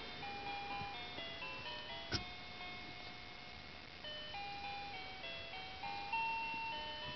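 Simple electronic lullaby melody from a crib soother toy: single beeping notes stepping up and down. A single sharp click comes about two seconds in.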